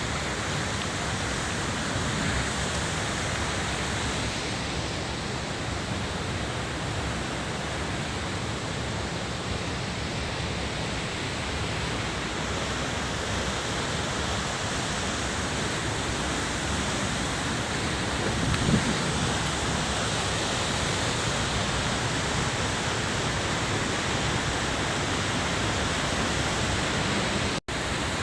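Waterfall: a steady, loud rush of falling water, with a brief low thump about two-thirds of the way through.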